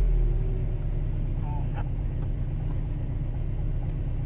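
Toyota Tarago van's four-cylinder petrol engine, heard from inside the cabin, dropping back from a brief rev of about 1650 rpm and settling to a steady idle of just under 1000 rpm.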